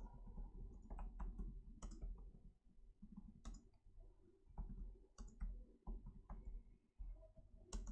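Faint, irregular clicking of computer keyboard keys as a sentence is typed.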